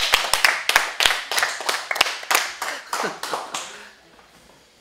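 A small group of people applauding, the clapping thinning out and dying away about three and a half seconds in.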